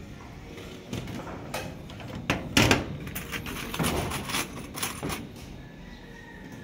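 Irregular knocks and clanks of roofing work on corrugated metal sheeting, about three a second, the loudest around two and a half seconds in, tailing off after about five seconds.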